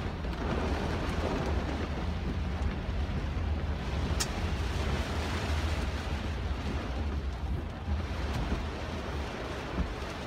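Heavy rain hitting a car's roof and windshield, heard from inside the cabin, over a steady low rumble from the car.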